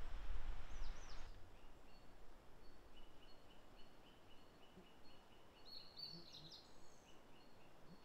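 Wild birdsong: a steady run of short, even notes about four a second, with a brief cluster of higher, quickly falling notes near the middle. The first second or so is a loud rushing noise with a low rumble that stops abruptly.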